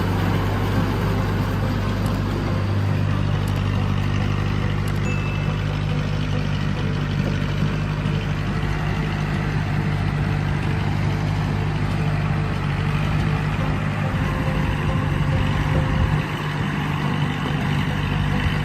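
Heavy diesel machinery engine running steadily, a low drone that steps up in pitch about three seconds in.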